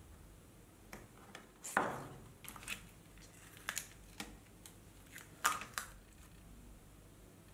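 Scattered crinkles and clicks of hands handling masking tape, a thin brass sheet and a flattened cardboard pack, the loudest about two seconds in and again about five and a half seconds in.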